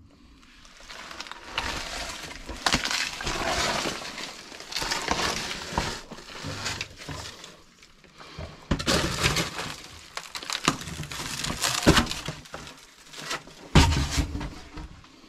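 Footsteps crunching over loose rubble and debris on a passage floor: an uneven run of crunches, scrapes and cracks with a few sharper knocks, the loudest near 12 seconds in and again near the end.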